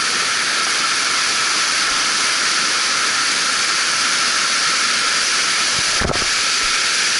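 Mountain stream rushing over boulders in small cascades: a steady, loud hiss of water. About six seconds in there is one brief low thump.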